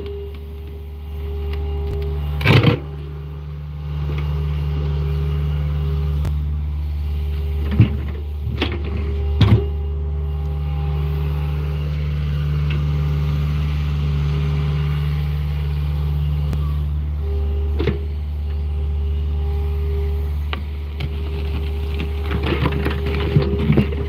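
John Deere compact excavator's diesel engine running steadily while the machine digs, its note changing as the arm and bucket work. A few sharp knocks of the steel bucket against dirt and rock come at irregular moments.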